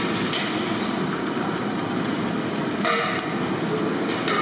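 Steady background rumble, with a short sharper sound about three seconds in.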